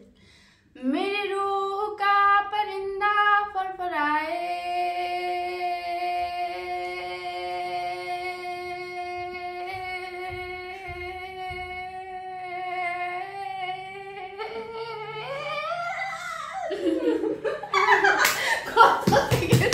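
A woman sings a short phrase, then holds one long steady note for about ten seconds in a voice-stretching challenge; the note drops and wavers before breaking off, and a burst of laughter from several women follows near the end.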